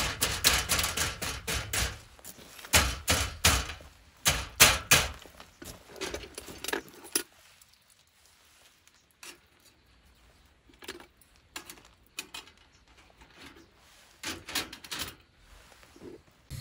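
Irregular clattering and knocking of camp cooking gear being handled, busy for the first several seconds and then only occasional.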